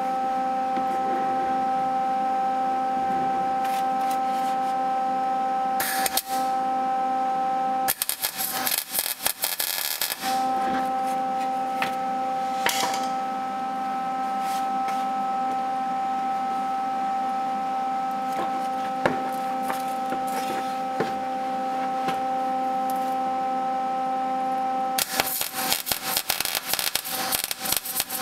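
Wire-feed (MIG) welder arc crackling as a nut is welded onto a broken steel bolt stub. There is a short tack weld about 8 seconds in, lasting about two seconds, and a longer continuous weld from about 25 seconds in. Between the welds a steady high hum is heard.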